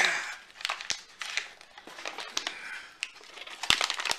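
Paper-like treat pouch crinkling and crackling in the hands as it is twisted and pulled, resisting being torn open. Irregular crackles throughout, with a couple of sharper clicks near the end.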